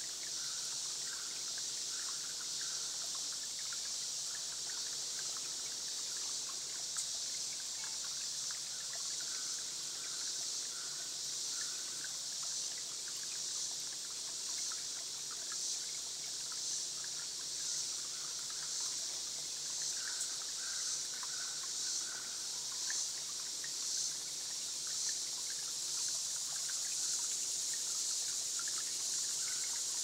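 Steady high hiss of trickling spring water, with insects calling.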